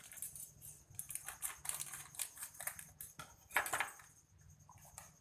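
Light clinking and rattling of a spoon and kitchenware, a run of short irregular clicks with one louder clatter about three and a half seconds in, as cornstarch is being readied for spooning into the mix.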